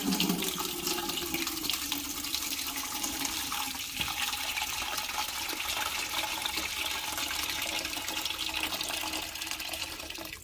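Water from a tap running steadily into a big pot, filling it, cut off abruptly at the end.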